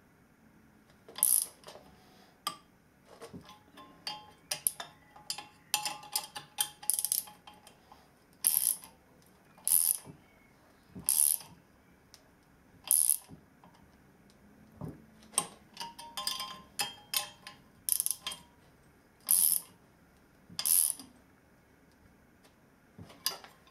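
Ratchet wrench tightening nuts on all-thread tie rods through an electric motor casing, clicking in repeated short strokes about every second or two. The rods are being drawn up to pull the sides of a crack in the casing together.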